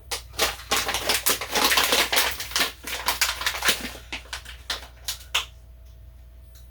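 Rapid, irregular clattering clicks and rustles of kitchen handling, which stop abruptly about five and a half seconds in.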